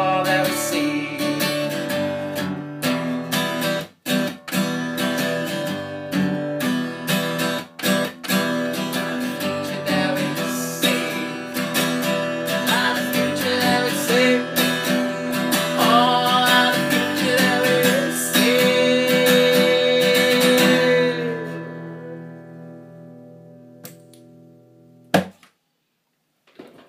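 Acoustic guitar strummed steadily, with a man's voice singing long held notes over it at times, as the song closes. The strumming rings out and fades about three quarters of the way through, and a single sharp knock comes near the end.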